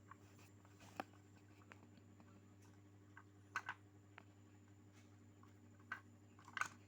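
Sparse light clicks and taps from handling small parts or tools during restoration work, a handful of them spread out, the sharpest pair about three and a half seconds in and a cluster near the end, over a faint steady hum.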